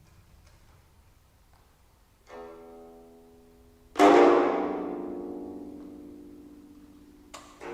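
Geomungo (Korean zither) notes struck with the bamboo plucking stick, sparse and separate: a soft note about two seconds in, a loud sharp stroke about four seconds in that rings and fades slowly over several seconds, and another stroke near the end. The strings are in unusual scordatura tunings.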